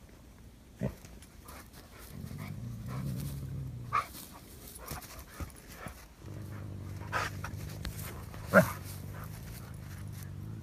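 A dog and a cornered bobcat in a standoff: low, steady growling in two long stretches, broken by a few short, sharp snarls or cries, the loudest about eight and a half seconds in.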